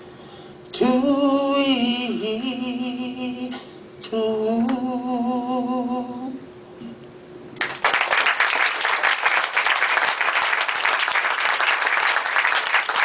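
A man's voice sings two long, wavering notes. From about seven and a half seconds in, the audience applauds.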